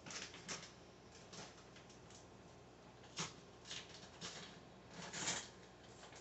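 Several brief, scratchy rustles at irregular intervals over a faint steady background, the loudest about five seconds in.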